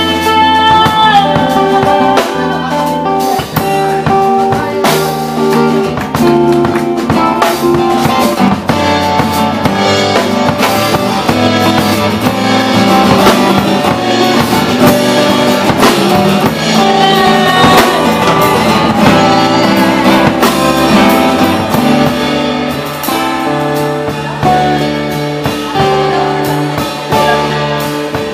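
Live folk band playing: acoustic guitar and drum kit, with a held melody line over them.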